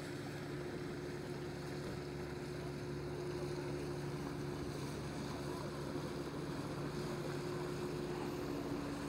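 A boat's engine running with a steady, even hum, over a constant rushing background noise.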